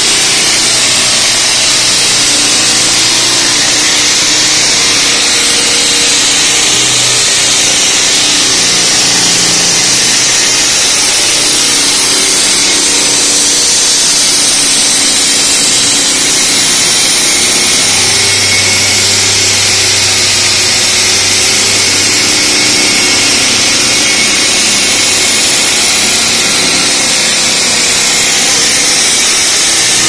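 Diamond concrete-cutting saw running continuously through reinforced concrete, a loud steady high-pitched hiss over a motor hum that shifts in pitch.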